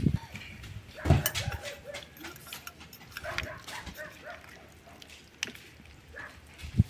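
A dog whining with short yips, along with a couple of dull knocks.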